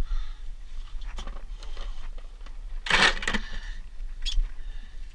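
Knocks and clatter of gear being handled on a boat deck, loudest in a short clatter about three seconds in, with a sharp click a little later and a man's hard breathing near the start.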